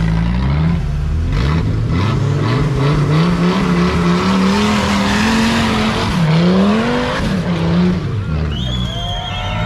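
Off-road vehicle's engine revving hard, its pitch climbing and dropping repeatedly, with a rush of noise midway as the wheels spin. Voices shout near the end.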